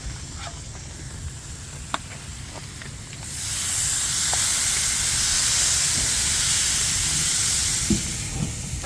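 Water flashing to steam on the hot Gridiron 36 flat-top griddle to melt cheese on fries. A soft sizzle with a few light clicks comes first, then about three seconds in a loud, high steam hiss starts, lasts about five seconds and stops near the end.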